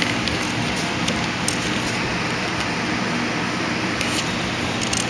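Steady background hiss with a low hum, broken by a few faint clicks.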